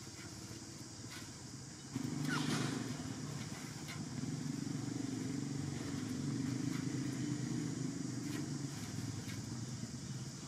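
A motor vehicle's engine comes in suddenly about two seconds in and runs steadily at a low, even pitch, easing off near the end.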